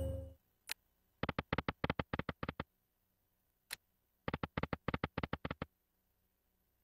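Slot machine game sounds: the end of a win jingle fades out, then two quick runs of short electronic ticks, about ten or twelve each, as the reels spin and stop. Each run is set off by a single click.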